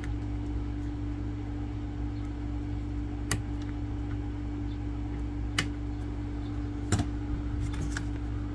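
Flush-cut snips clipping the excess leads of a newly soldered through-hole transistor on a circuit board: three sharp snaps, about three, five and a half and seven seconds in, with a few fainter clicks just after. A steady low hum runs underneath.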